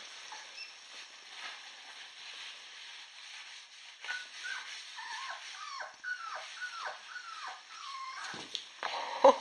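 Dog whimpering in play: a run of short, high whines, each falling in pitch, starting about four seconds in. A sharp knock near the end is the loudest sound.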